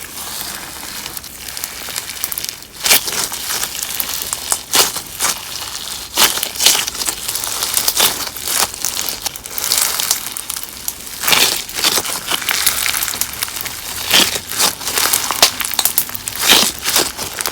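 Crunch slime packed with mix-ins being squeezed and pressed by hand, giving a dense run of crackling and crunching pops, with louder crunches every few seconds.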